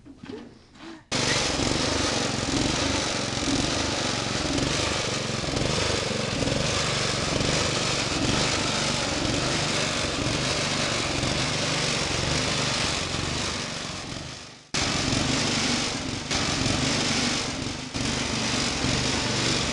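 GT-14 garden tractor's engine running loudly and steadily as the tractor is driven. The sound cuts in sharply about a second in, fades away after about 13 seconds and cuts straight back in.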